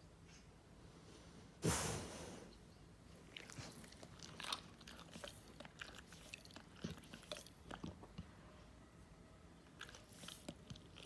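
Golden retriever's mouth sounds: a loud breathy yawn about two seconds in, followed by scattered wet clicks and lip-smacking.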